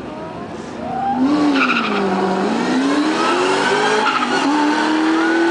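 Two Ford Mustang V8s, a supercharged 2003 SVT Cobra and a turbocharged 2006 GT, run hard off the drag strip start line. The sound gets much louder about a second in, and the engine pitch dips and then climbs steadily under acceleration.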